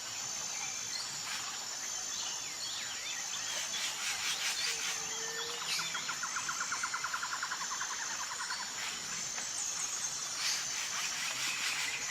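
Outdoor nature ambience: insects chirring steadily at a high pitch, with scattered bird chirps. About five seconds in, a rapid trill runs for roughly three seconds.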